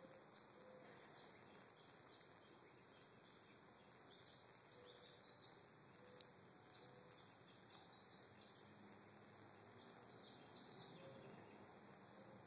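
Near silence: faint outdoor ambience with a few faint, short distant chirps and a small click about six seconds in.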